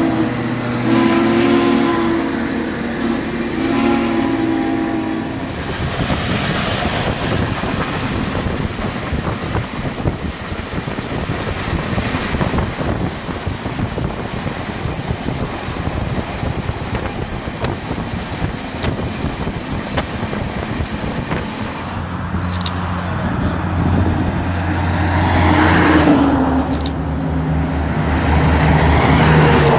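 Southern Pacific 4449, a GS-4 4-8-4 steam locomotive, and its train: a chime steam whistle sounding for the first few seconds as the passenger cars roll by, then a long stretch of the moving train's rapid running noise mixed with road noise. Near the end a steady low hum runs under two loud, sharp camera shutter clicks from a Canon T5 DSLR.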